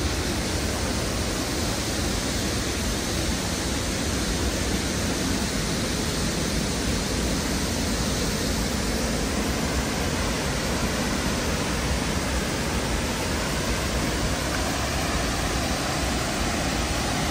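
Steady rushing of Bảo Đại waterfall, several streams of water pouring over a rock cliff into the pool below.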